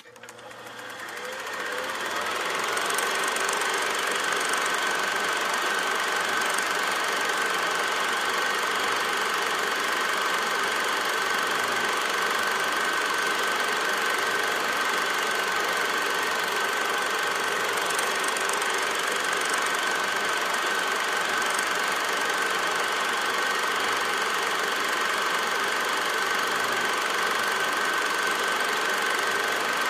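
A steady machine-like running noise with a constant high whine. It fades in over the first two seconds, then holds level.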